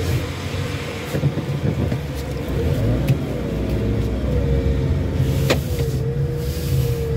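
A car driving slowly, heard from inside the cabin: a low engine and road rumble with a steady engine drone that wavers slightly in pitch. Two short sharp clicks come about three and five and a half seconds in.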